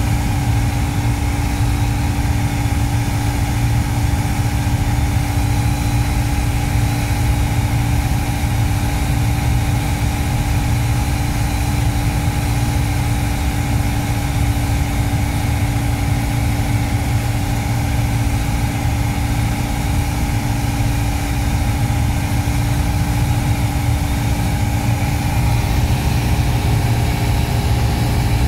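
Piper PA-28's piston engine and propeller running steadily in flight, heard inside the cockpit as an even, loud drone with a constant hum above it.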